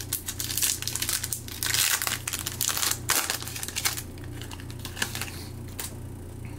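Plastic foil trading-card pack wrapper being crinkled and crumpled by hand, a dense crackle for about four seconds that then thins out.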